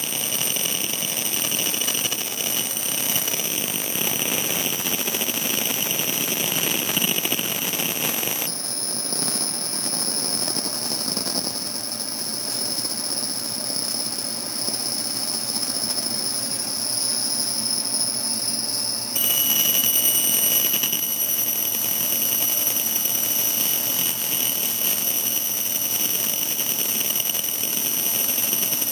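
Laser engraving machine running while it marks a stone: a steady rushing noise with several high, steady whining tones. The whines change pitch about eight seconds in and return to their first pitches about eleven seconds later, when the sound also gets a little louder.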